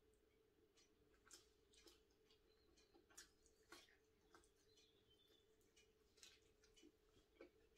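Faint mouth sounds of eating by hand: soft, irregular chewing and lip-smacking clicks, over a low steady hum.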